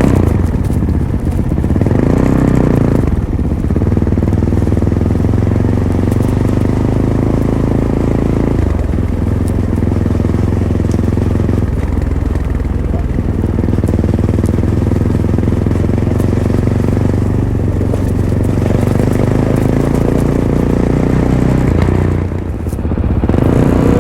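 Fantic Caballero 500's single-cylinder engine running through its stock Arrow exhaust while riding, the engine note shifting up and down several times with throttle and gear changes. Near the end it drops off briefly, then picks up again.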